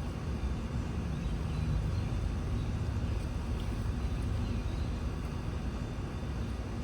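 Engine of a piece of heavy equipment running steadily, a low rumble.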